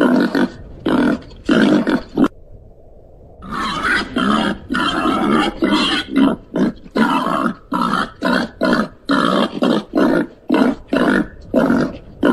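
Babirusa calling: a run of short, loud, rough calls, about two a second. About two seconds in there is a break of roughly a second, followed by a denser run of calls that then settles back to the same steady pace.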